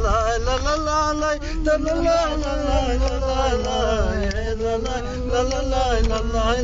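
A man singing a folk-style song in a full, chant-like voice, holding long notes that waver up and down in pitch, over the steady low rumble of the vehicle's engine and road inside the cabin.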